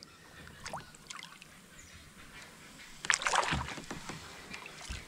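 Water splashing beside a kayak about three seconds in, ending in a low knock, with faint water sounds otherwise.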